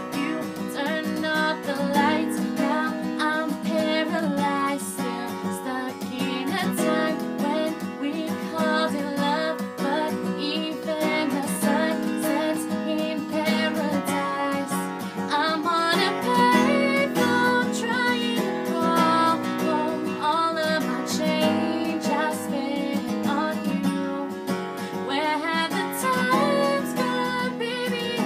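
Acoustic guitar strummed steadily, accompanying a woman singing a pop song.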